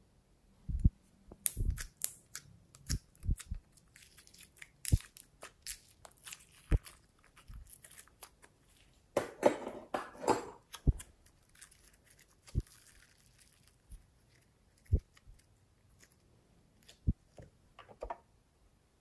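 Glossy glitter slime handled by hand, giving irregular sticky pops, clicks and crackles, with a denser stretch of squishing crackle about nine to eleven seconds in.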